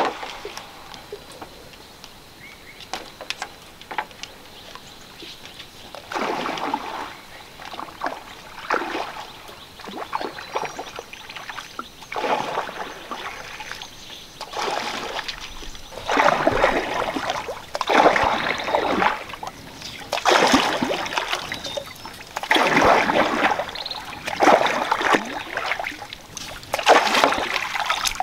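Water swishing and sloshing in repeated strokes about every two seconds as a bamboo raft is poled across a lake; the strokes grow louder in the second half.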